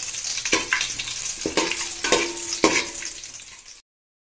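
Whole spices and green chillies sizzling in hot ghee and oil in an aluminium pot, while a perforated metal spatula scrapes and knocks against the pot as they are stirred, several knocks ringing briefly. The sound cuts out abruptly near the end.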